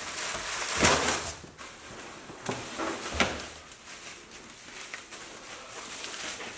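Packing paper and plastic bubble wrap rustling and crinkling as they are pulled out of a cardboard box, with a few louder scrunches in the first few seconds.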